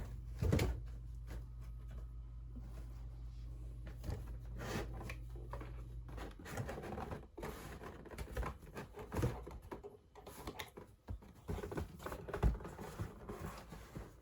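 Irregular scratching, tapping and rustling, typical of a kitten playing in and clawing at cardboard boxes. A steady low hum stops about six seconds in.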